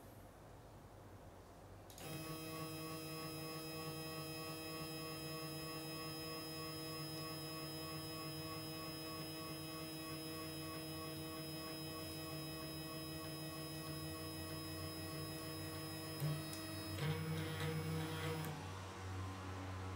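K8200 3D printer's Z-axis stepper motor running, turning the threaded rod through a misaligned motor-to-rod coupling: a steady hum made of several fixed tones that starts about two seconds in. Near the end there is a click, and the sound changes and grows louder for a second or two.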